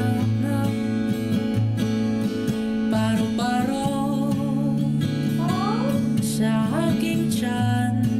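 A male singer performing live over strummed acoustic guitar, his voice sliding up through a vocal run about halfway through.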